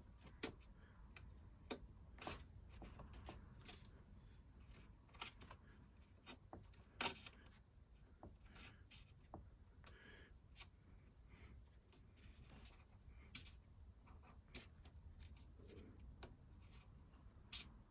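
Hobby knife cutting out a small gun port in a wooden model ship hull: faint, irregular clicks and short scrapes as the blade picks into the wood.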